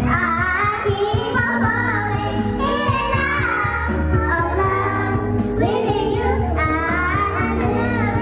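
Background song: a woman's voice singing a wavering melody over steady instrumental accompaniment.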